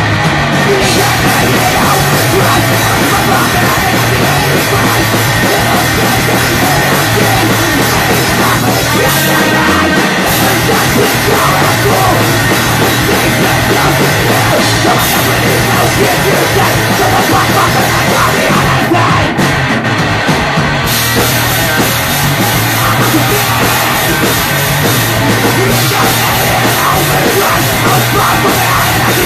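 Loud, fast punk rock played live by a band, with distorted electric guitars and a pounding drum kit, recorded from the crowd.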